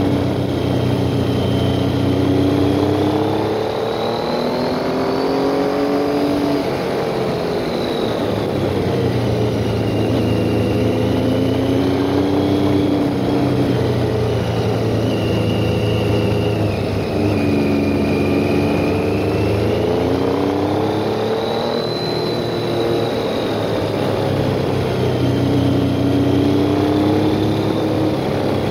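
Motorcycle engine running under changing throttle, its pitch rising and falling again and again as the bike accelerates and eases off through a run of curves, with steady wind noise underneath.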